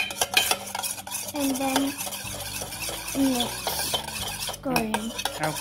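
A metal spoon stirring runny pancake batter of egg, milk and oil in a stainless steel bowl, with rapid clinks and scrapes against the bowl's sides.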